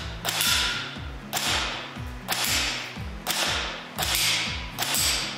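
HERA ARMS CQR electric airsoft rifle (ICS-built AEG with electric blowback) firing single semi-automatic shots, about six, a little under a second apart.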